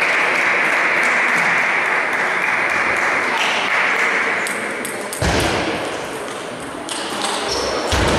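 Table tennis ball clicking off bat and table as a rally gets going near the end, with a sharp knock about five seconds in, over steady background noise in the hall.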